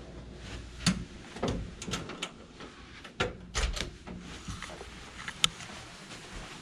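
Hotel room door being opened and pulled shut: a string of clicks and knocks from the lever handle, latch and door, the sharpest about a second in and again about five and a half seconds in.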